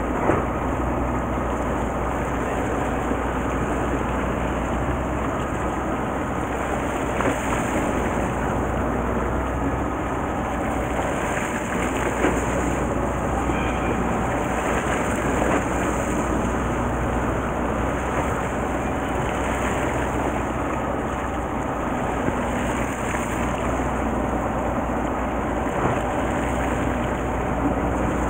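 Fishing boat's engine idling steadily under a haze of sea-water and wind noise, with a few faint clicks.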